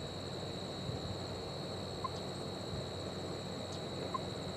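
Steady, unbroken high insect trill, typical of field crickets or katydids, over an even low rumble of outdoor ambience.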